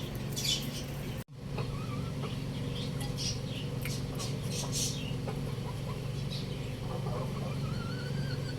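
Chickens clucking faintly over a steady low hum, with a brief dropout in the sound about a second in.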